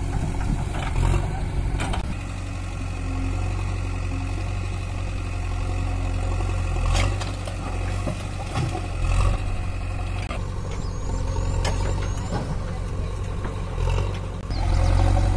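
Diesel engines of a JCB backhoe loader and tractor running steadily, with several sharp knocks and clatters as the backhoe bucket drops earth and stones into a steel tractor trolley. The engine gets louder near the end.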